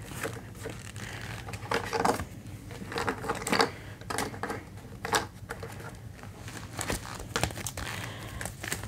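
Clear plastic zip envelopes in a ring binder crinkling and rustling as they are handled and the pages are turned, in irregular short strokes with a few sharper taps.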